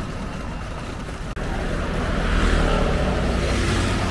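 Road traffic: a motor vehicle passes close by. Its low engine and tyre noise swells about halfway through and begins to ease near the end, with a brief sudden dropout about a second in.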